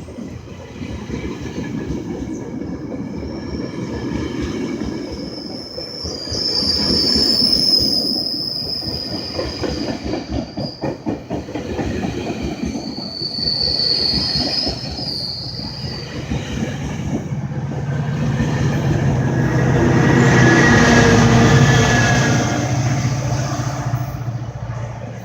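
GO Transit commuter train pulling out and rolling past, its wheels clacking rapidly over the rail joints, with high-pitched wheel squeals at times and a louder stretch near the end. One of its coaches, 2829, runs on a bad wheel bearing.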